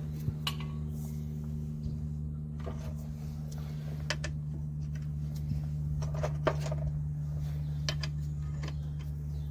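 Scattered light clicks and knocks of tools and car parts being handled and set down, over a steady low hum.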